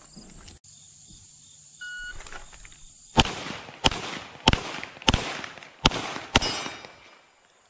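A shot timer gives a short start beep, then a Glock 34 9mm pistol fires six shots, about one every 0.6 s, each echoing briefly. Crickets drone steadily at a high pitch behind it.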